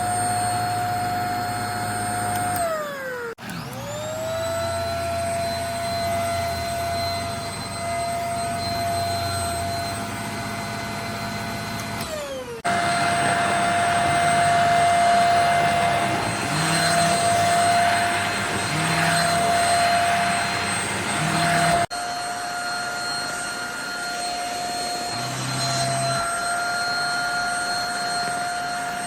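Handheld mattress vacuum (JPHYLL Ultra-UVC-K16) running with a steady high motor whine. About three seconds in it is switched off and its pitch falls, then it starts again and the pitch rises. It winds down once more about twelve seconds in before running again.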